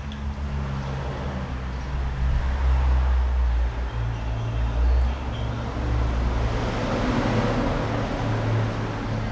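Road traffic going by: a heavy vehicle's engine drones low, stepping up in pitch about four seconds in, and a swell of passing engine and tyre noise peaks around seven to eight seconds in.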